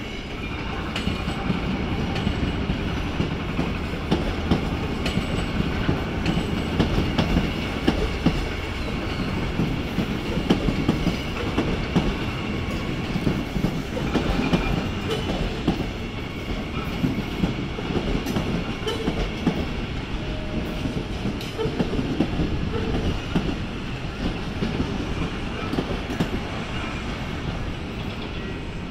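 Queensland Rail train running along the tracks with a steady rumble and many small clicks from the wheels over the rail joints.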